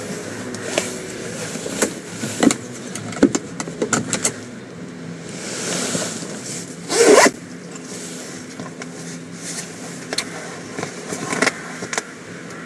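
A suede holdall being handled and unzipped: scattered clicks and rustles of the bag, with the zip pulled open in one loud rasp about seven seconds in.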